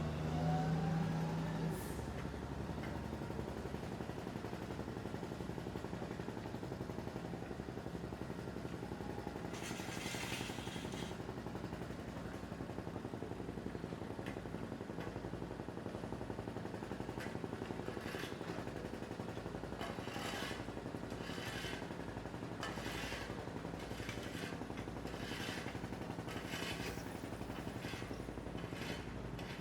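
Construction machinery engine running steadily. A rising whine comes in the first two seconds, a burst of hiss about ten seconds in, and a run of short hissing bursts about once a second near the end.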